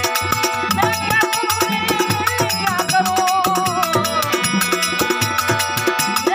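Folk devotional bhajan music: a bending melody line over a fast, steady beat of hand drum and rattling percussion.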